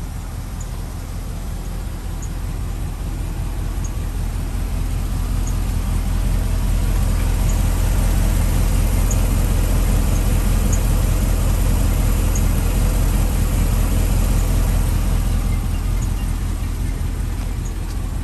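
Isuzu NPR HD truck engine idling with a steady low rumble. It grows louder about a third of the way in and eases off near the end.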